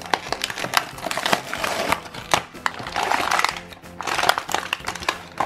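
Clear plastic blister packaging of a toy pack crinkling and clicking as it is pulled open, with two longer stretches of crackling about one and three seconds in. Background music plays throughout.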